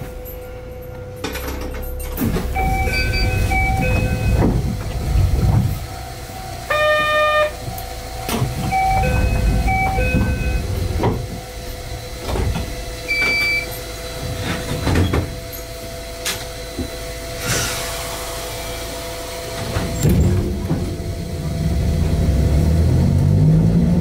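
A 260-series narrow-gauge electric train standing at a station with a steady electrical hum, broken by a few short electronic chime notes, a brief buzzer and light knocks. About 17 s in there is a hiss of air, and from about 20 s in the traction motors whine upward in pitch as the train pulls away.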